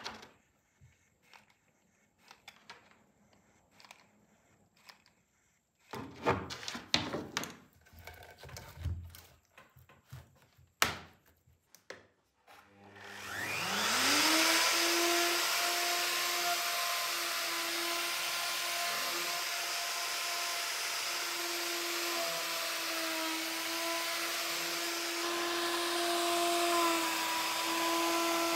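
A few knocks and clicks from handling on the bench, then about thirteen seconds in a router spins up with a rising whine and runs steadily at full speed on its flattening sled, surfacing an epoxy-and-walnut clock blank.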